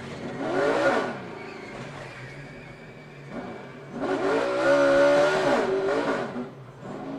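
NASCAR Cup stock cars' V8 engines passing at speed, the pitch rising then falling as each goes by. There is a brief pass about half a second in and a longer, louder one from about four seconds in.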